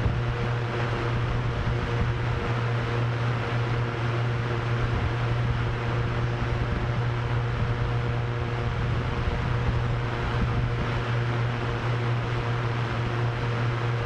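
Drone propellers spinning at a steady speed, a constant low hum with a few fainter steady tones above it, over an even wind-like hiss.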